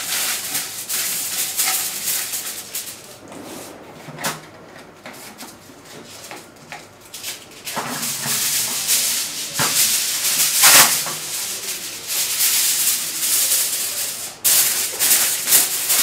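Aluminium foil crinkling and rustling in irregular bursts as it is pressed and folded around a handi to seal it for dum cooking, with a quieter stretch a few seconds in.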